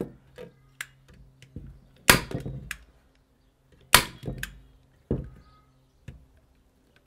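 Hand staple gun firing staples through wire mesh into a wooden frame: sharp snaps about two and four seconds in, a weaker one about five seconds in, with light clicks between.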